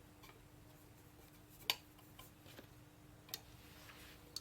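A few light, sharp metal clicks, three in all about a second apart, over quiet workshop room tone with a faint steady hum, as sheet-metal parts are handled.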